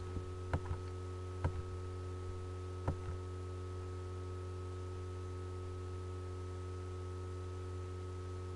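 Steady electrical hum on the recording, with a few short mouse clicks in the first three seconds.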